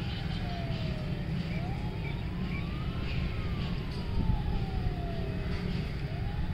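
A wailing siren, one tone sliding slowly down and up in pitch, each sweep taking about one and a half to three seconds, over a heavy low rumble.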